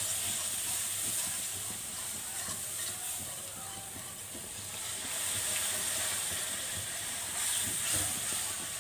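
A butter-and-flour roux sizzling in a frying pan as milk is added a little at a time and whisked in, with a wire whisk scraping and lightly clicking against the pan.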